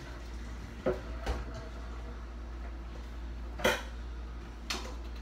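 A cooking pot handled at a kitchen sink, knocking and clanking four times, the loudest about three and a half seconds in, over a low steady hum.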